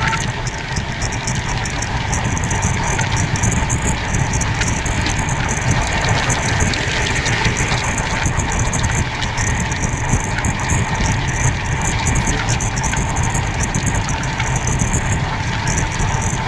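Passenger train coaches running at speed on the rails, heard from an open doorway: a steady rumble and rush of noise with many short rattles and clicks.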